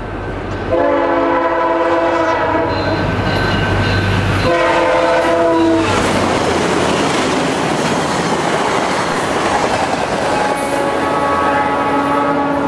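VIA Rail passenger train led by an F40PH-2 locomotive passing at speed, sounding its multi-note horn in two long blasts as it approaches. The pitch of the second blast drops as the locomotive goes by. Then comes the loud rush and clatter of the passenger cars' wheels on the rails, with another horn blast near the end as the train draws away.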